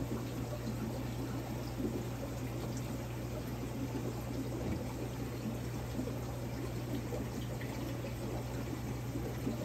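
Aquarium water running and bubbling steadily, with a steady low hum from the tank's equipment underneath.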